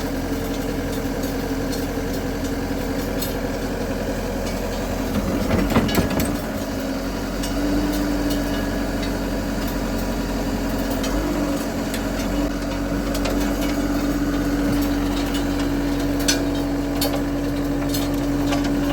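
John Deere 331G skid steer's diesel engine running steadily while it drives a Gyru-Star star screening bucket. A steady whine comes in about eight seconds in, and there are scattered clacks of material in the bucket. There is a louder rough surge around five seconds in.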